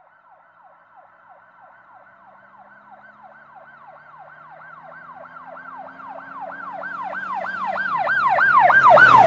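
Emergency vehicle siren in a fast yelp, about three sweeps a second, growing steadily louder as it approaches and loudest near the end, with a low engine hum under it from a few seconds in.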